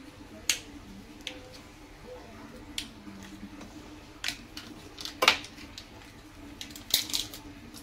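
A steel spoon clicking and tapping as pieces of butter are cut off a block and dropped into a pan: scattered sharp clicks, the loudest about five seconds in and a quick cluster about seven seconds in.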